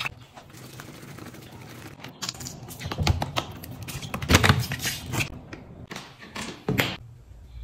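A plastic soda bottle being handled: a rapid run of crackles and clicks as the plastic is squeezed and the cap twisted, loudest in the middle and ending with a sharp click just before the end.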